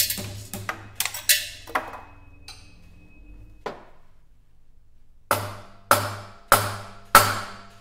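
Mallet blows on the steel column of a Hitachi S800 scanning electron microscope, each strike ringing briefly: a few knocks about a second in, then four sharp strikes about half a second apart near the end. The blows are meant to jar the stuck column loose from the sample chamber.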